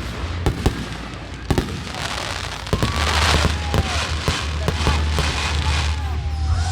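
Consumer fireworks going off: scattered sharp bangs and pops, then from about three seconds in a pulsing, hissing crackle with whistles sliding down in pitch over a steady low rumble.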